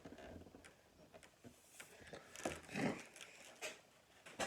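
Faint handling noises from a boxed bobblehead figure being opened: scattered light clicks and rustles of packaging, with a sharp click near the end.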